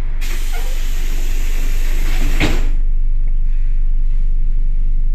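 Pneumatic sliding doors of an ER2 electric train closing: a hiss of air for about two and a half seconds, with a bang near the end as the doors shut, over a steady low hum.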